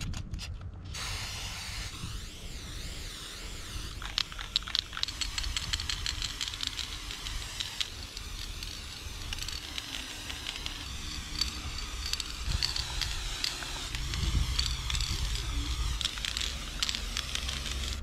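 Aerosol spray paint can hissing as it sprays through a homemade cap made from a pen body, starting about a second in and running as steady passes.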